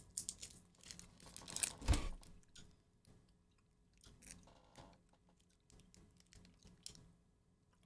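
Plastic candy wrapper crinkling with a thump about two seconds in, then faint chewing of a cola-flavoured long chew taffy candy.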